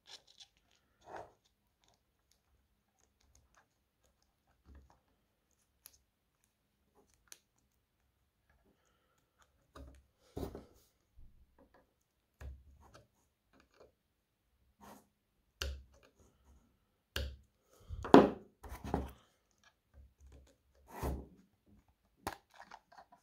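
Thin plastic protective film crinkling and rustling as it is pressed back onto a stopwatch face, with scattered clicks and knocks from handling the plastic counter housing. The sounds come in short, spaced-out bursts with quiet in between, the loudest about 18 seconds in.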